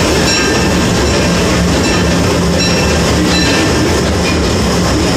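Disneyland Railroad train running on its track, heard from on board: a steady loud rumble of wheels on rails, with a few short, faint high squeals.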